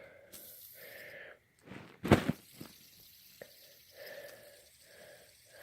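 Faint handling of a fidget spinner: a sharp click about two seconds in and a couple of lighter taps, over soft breathy rustling that comes and goes.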